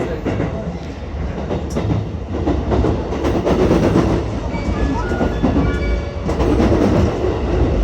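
JR West 223 series 2000-subseries electric train running, heard from inside the car: a low rumble of wheels on rail that grows louder. About five seconds in come a few short, stepped high tones from its Hitachi IGBT inverter.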